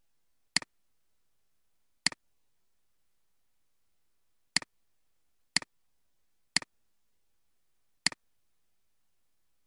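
Computer mouse button clicked six times at irregular intervals, each click a quick press-and-release double tick.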